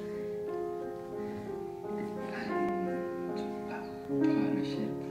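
Grand piano playing slow, held chords that change about once a second.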